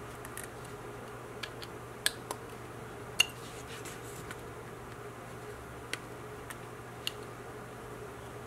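Carving knife cutting into a basswood figure: a series of light, sharp clicks and snicks as small chips are cut, about ten spread irregularly over eight seconds, the loudest around two and three seconds in.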